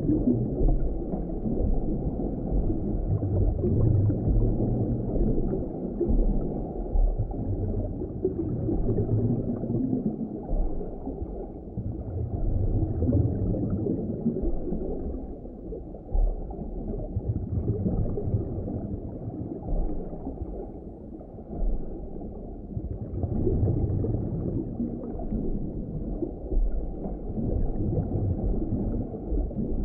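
Muffled underwater ambience: deep rumbling water that swells and eases every few seconds, with no high sounds at all.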